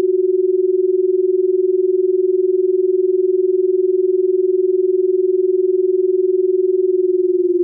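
Steady pure electronic sine tone in the middle register, the drone of a subliminal audio track, with a quick, even pulse in its loudness. Near the end it glides slightly lower in pitch.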